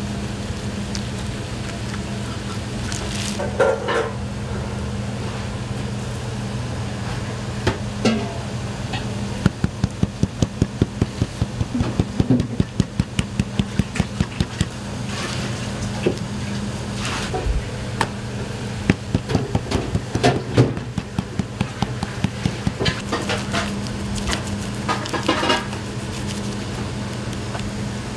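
Kitchen knife tapping on a cutting board as slices of pork loin are scored and tenderized for katsu. The taps come in a fast, even run of about three a second through the middle, then more scattered, over a steady low hum.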